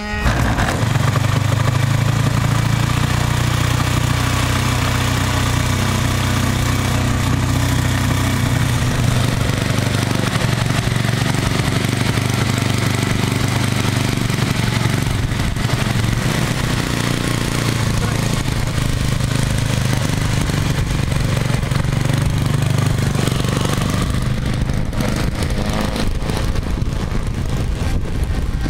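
The OS 200 four-stroke glow engine of a quarter-scale Tiger Moth model catches off an electric starter right at the start and then runs steadily on the ground, a continuous engine note throughout.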